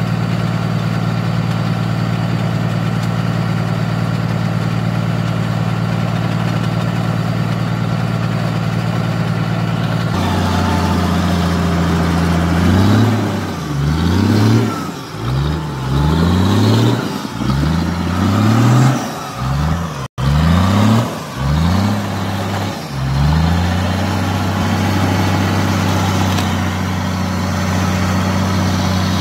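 Toyota Land Cruiser hardtop's engine idling steadily, then blipped hard about ten times in quick succession, roughly once a second, as the mud-bogged 4x4 tries to pull itself free, before settling back to a steady idle.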